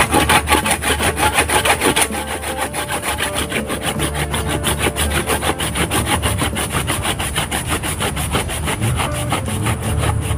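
Hand pruning saw cutting back and forth through the woody base and roots of a gamal (Gliricidia) tree, in quick, even strokes. The strokes are louder for the first two seconds.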